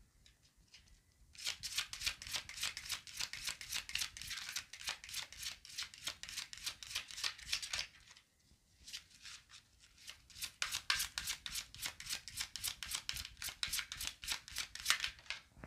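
Tarot cards being shuffled by hand: a rapid run of papery card-on-card clicks in two bouts, with a short pause about eight seconds in.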